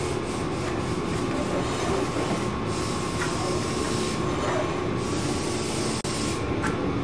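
Steady background machinery noise of a carpentry shop, with a few faint taps.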